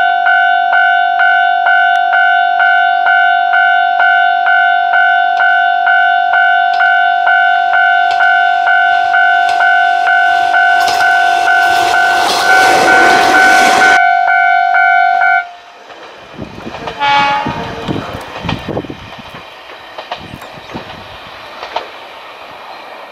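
Level-crossing warning bell ringing steadily, about two strokes a second, while the KiHa 2201 diesel railcar approaches and passes close by, its running noise loudest just before the bell stops about fifteen and a half seconds in. After that the railcar's wheels clack over rail joints as it draws away.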